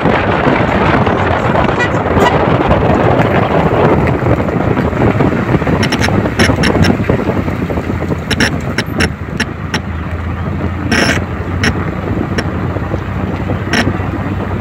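Car on the road: steady road and wind noise, with several sharp clicks or knocks in the second half.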